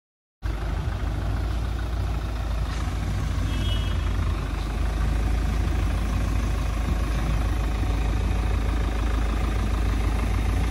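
Steady low rumble of an idling vehicle engine, starting abruptly about half a second in.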